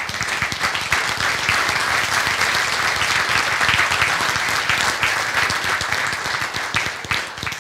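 A conference audience applauding: many hands clapping together in a large hall, holding steady and then tapering off near the end.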